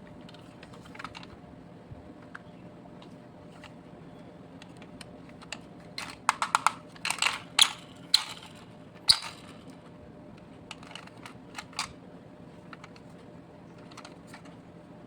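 Light clicks and clatters of small hard toy parts being handled, a few at first, then a quick flurry about six to nine seconds in, then sparse again.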